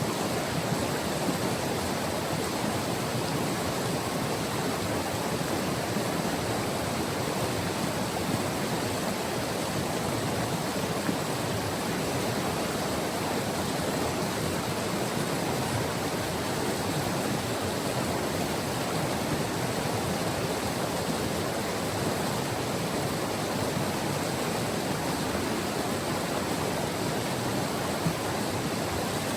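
White River water rushing over its rocky bed, a steady even rush with no changes.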